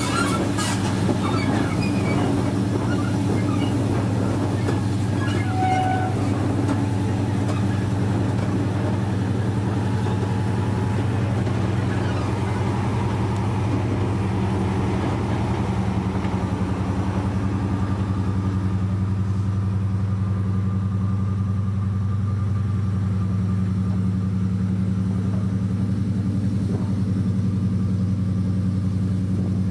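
Class 55 Deltic diesel locomotive 'Royal Scots Grey' with its twin Napier Deltic two-stroke diesel engines running, a steady low drone that holds one pitch throughout.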